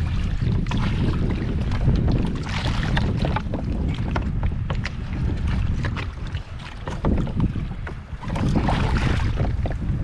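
Wind buffeting the action camera's microphone on a kayak at sea, with water sloshing and slapping against the hull; the splashing swells about two and a half seconds in and again near the end.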